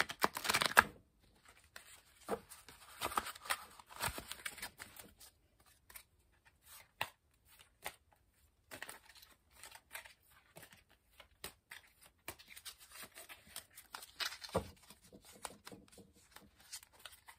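A tarot deck shuffled and handled by hand: scattered rustling and soft card clicks, loudest in the first second.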